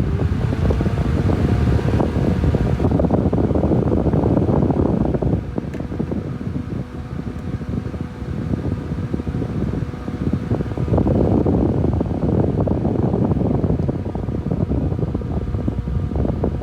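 ES industrial electric fan running: a steady rush of air with a faint motor tone that rises in pitch in the first second as it comes up to speed, then holds. The air noise swells and eases, loudest for the first few seconds and again a little past the middle.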